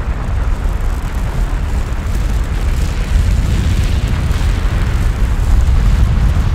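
Volcanic eruption sound effect: a steady deep rumble with a rushing hiss over it, a little louder from about three seconds in.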